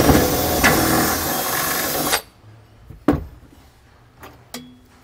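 Cordless drill with a 5/16-inch bit boring through the plywood floor under the tray, running for about two seconds and then stopping suddenly as it breaks through. A single sharp knock follows about a second later.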